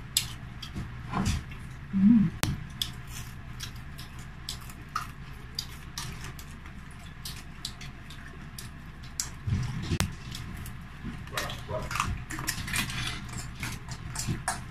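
Close-up eating sounds of people chewing crispy deep-fried chicken and rice: many scattered sharp clicks and crunches, with light clinks of spoon and fork on plates.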